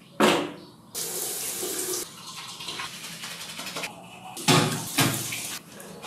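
Bathroom tap running into a sink while teeth are brushed with a toothbrush, with two loud splashes at the basin near the end.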